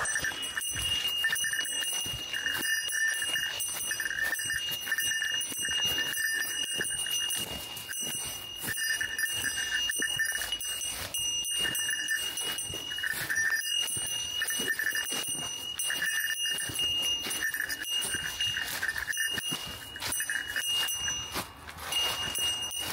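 A bear bell ringing as its wearer walks, under a short electronic jingle that repeats over and over from a Yobikomi-kun Mini DX promotional speaker, carried to keep bears away. The ringing tone holds almost throughout, broken only briefly twice.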